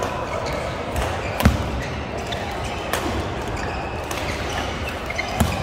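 Badminton rackets striking the shuttlecock and players' feet moving on the court floor in a large echoing sports hall, over a steady low rumble. The sharpest hit comes about a second and a half in, with another near the end.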